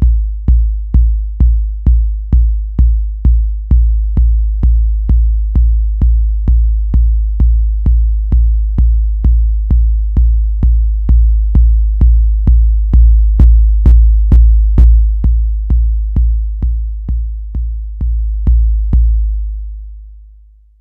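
Tip Top Audio BD808 Eurorack bass drum module, an 808-style kick, playing a steady run of deep booming kicks, two to three a second, through a dbx compressor. A few hits in the middle carry a sharp click on top. The last kick rings out in a long fading boom near the end.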